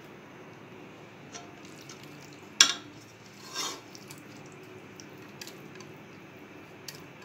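Metal spoon stirring chana dal and water in a metal cooking pot, with one sharp clank against the pot a little over two seconds in, a softer scrape just after, and a few light taps.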